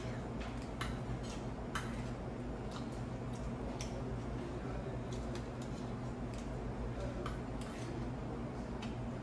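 Metal spoon tapping and scraping against stainless steel curry bowls, a scatter of light irregular clicks over a steady low hum.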